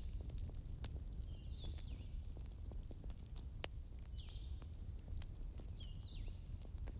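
Bonfire crackling, with frequent small pops and one sharp loud pop a little past halfway, over a low rumble of flames. Birds chirp in the background: a quick run of about seven short high notes about a second in and several separate calls.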